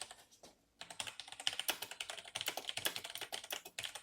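Fast typing on a full-size Das Keyboard with Cherry MX Brown mechanical switches, a rapid run of key clicks that starts about a second in.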